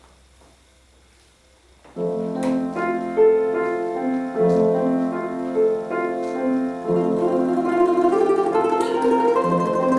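Quiet room, then about two seconds in a piano begins the slow introduction to a romance for domra and piano, with held chords and a gentle melody.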